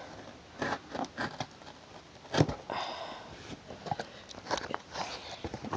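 Scattered taps, clicks and rustles of a cardboard shipping package being handled, with a short scraping stretch around the middle.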